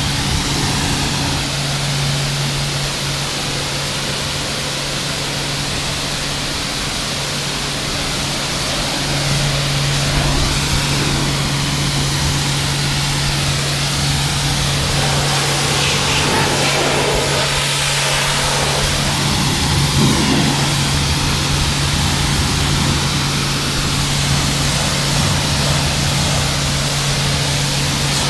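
Kärcher K4 pressure washer running: a steady motor hum under the hiss of its water jet spraying onto the car's bodywork and wheels. It gets a little louder about nine seconds in.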